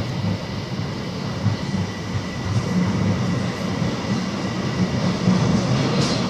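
Metro train running, heard from inside the passenger car: a steady low rumble of wheels on the rails, with a faint steady high tone above it.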